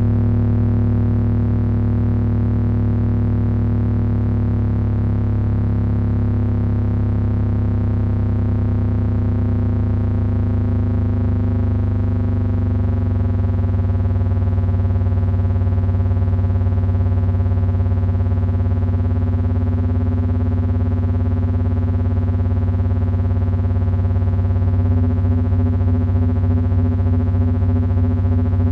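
Electronic drone noise from three Frequency Analyzer v1 units controlled by an HP 200C audio oscillator. It is a loud, steady mass of stacked low tones with a slow wavering beat. Near the end one of the higher tones starts to pulse rapidly.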